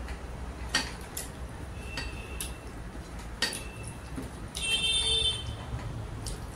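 Fingers gathering food on a plate, with a few light clicks and clinks against the plate, one ringing briefly. A louder stretch of noise comes about five seconds in.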